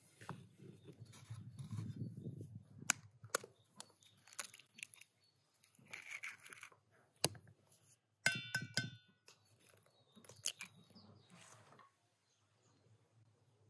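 Scattered taps and sharp cracks of eggs being broken against an enamel bowl over flour, with some soft handling and rubbing noise. A short ringing clink comes about eight seconds in.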